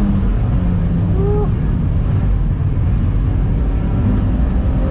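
Infinity G35 race car's V6 engine running hard under racing load, heard from inside the cabin as a steady dense drone. The pitch rises and drops briefly about a second in as the revs change.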